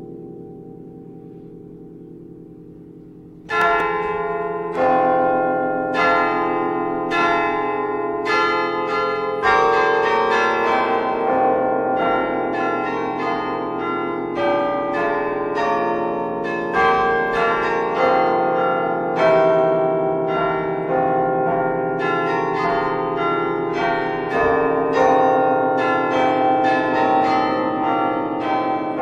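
A bell tone fading away, then from about three and a half seconds in, bells struck one after another about once a second, each ringing on into the next.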